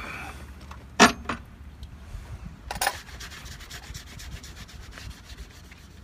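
A cloth rag rubbing and wiping painted sheet-metal, with two sharp clacks about one and three seconds in, the first the loudest, followed by faint, quick wiping strokes.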